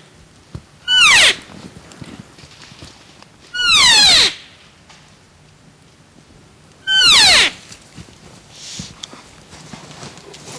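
Three short, loud elk calls, each a nasal mew that slides down in pitch, spaced a few seconds apart. They are typical of cow-elk calling used to pull a rutting bull in.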